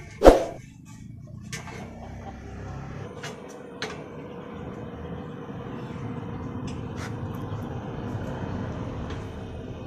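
A single loud metallic clank with a short ring just after the start, then a few light clicks over a low, steady hum that swells slightly and eases near the end.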